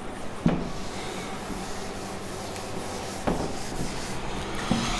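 Handheld whiteboard duster rubbing across a whiteboard, wiping off marker writing with a steady rubbing hiss.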